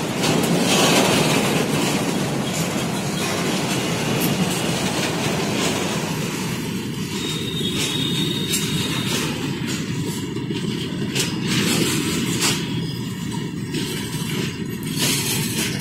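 Open-top wagons of a goods train rolling past close by: a steady rumble of wheels on rail. From about halfway through, repeated clatter of wheels crossing rail joints joins it, with a brief thin high squeal about eight seconds in.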